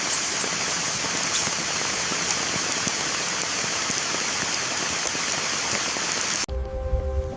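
Steady rain falling: a dense, even hiss with faint scattered drop ticks. It cuts off suddenly near the end, and music with held tones and a low bass comes in.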